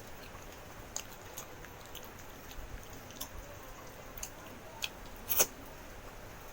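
A person eating, close to the microphone: chewing and biting, with a scatter of short, sharp crunchy clicks, the loudest about five seconds in.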